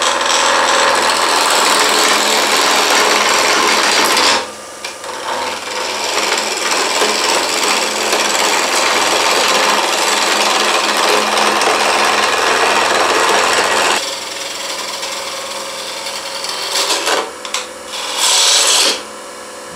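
Wood lathe running while a turning chisel cuts into the spinning wood, a loud continuous rasping scrape of shavings being taken off. The cut eases off briefly about four seconds in, carries on, then turns lighter with a couple of short hard cuts near the end, over the lathe's steady hum.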